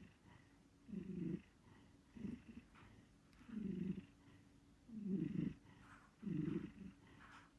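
Pet cat snoring while asleep: a low rasping snore on each breath, about one every second and a half, with quiet pauses in between.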